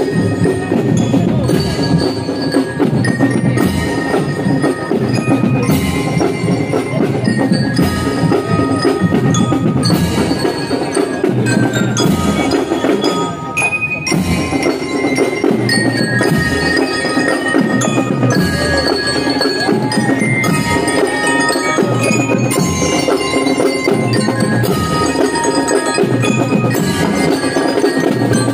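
Drum and lyre corps playing a march, the bell lyres ringing out the melody in clear metallic notes over a steady drum beat.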